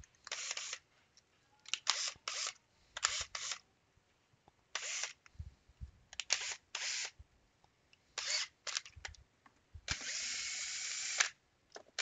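A string of short scraping, clattering handling noises. About ten seconds in, a cordless drill-driver runs steadily for about a second and a half with a faint motor whine, backing a screw out of the scan tool's plastic case.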